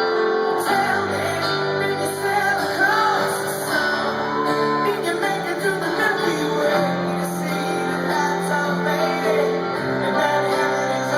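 Live rock band music: strummed guitar and a sung vocal line over a steady band accompaniment.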